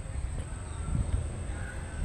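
Outdoor background: an uneven low rumble, with a few faint bird chirps and a steady high-pitched tone; no horn sounds.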